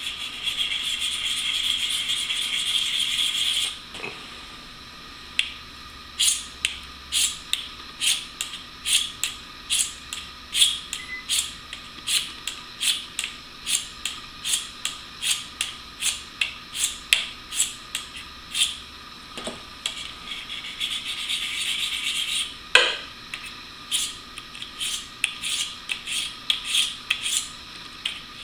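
A blade being stroked across the coarse side of a two-sided sharpening stone. It opens with a steady scraping rub, then breaks into a long run of short, quick strokes at about one and a half a second, with another long rub near the end.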